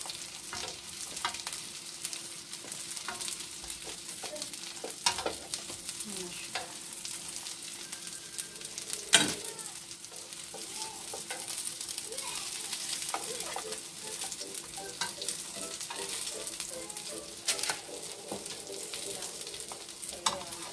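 Banana-peel burger patties sizzling in oil in a nonstick frying pan, a steady hiss. Scattered scrapes and taps of a spatula against the pan as the patties are turned, with one sharp knock about nine seconds in.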